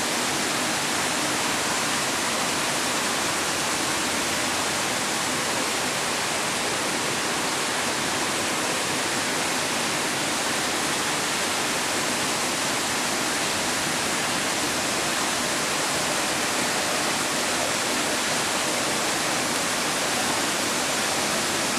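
Steady rush of falling water from the mill creek, an even hiss that does not change.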